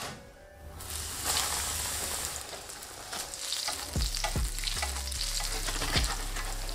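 Breaded potato cakes sizzling in hot oil in a frying pan, a steady hiss that picks up about a second in. From about four seconds in, a few sharp knocks and scrapes as a slotted spatula works the cakes against the pan.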